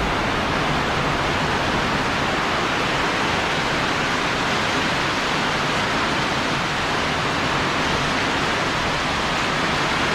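Heavy rain pouring down in a rainstorm: a dense, steady hiss that stays even throughout.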